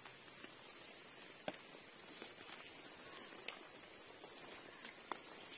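Insects trilling steadily on one high note, with a couple of faint clicks from a knife and hands working in the soil.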